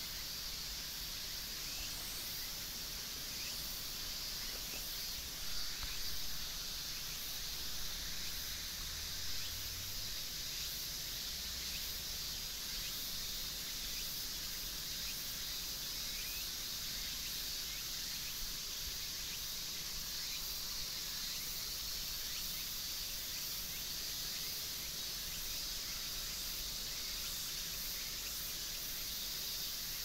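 Steady high-pitched chorus of insects, a constant shrill hiss, with a few soft low thumps about five to ten seconds in.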